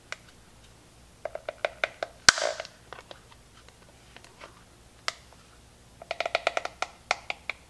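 Metal spoon levered into the seam of a Cuisinart carafe's two-piece snap-fit plastic lid, clicking against the plastic in two quick runs of small clicks. About two seconds in comes one sharp, louder snap, and another lone click comes near the middle.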